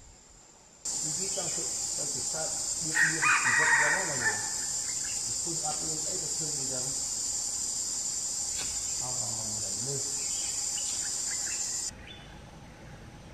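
A red junglefowl rooster crows once, about three seconds in. Under it runs a loud, steady, high-pitched insect drone that starts suddenly about a second in and cuts off near the end.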